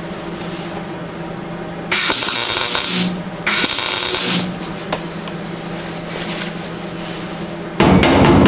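MIG welder laying tack welds on a steel patch panel: two short bursts of crackling arc, each about a second long, with a brief gap between them, a couple of seconds in. Near the end a different loud, steady noise starts.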